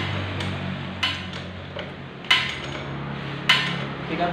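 Metal hand tool clinking against the rear sprocket and its bolts on a Suzuki Axelo motorcycle during a chain and sprocket fitting. The sharp metallic knocks come roughly once a second, each with a short ring, over a steady low hum.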